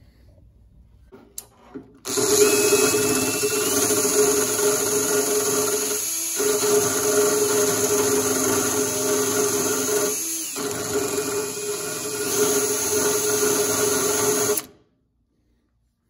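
Cordless drill running steadily for about twelve seconds, drilling a hole in the Ford Bronco's body for a self-tapping ground screw. The motor eases off briefly twice and then stops suddenly.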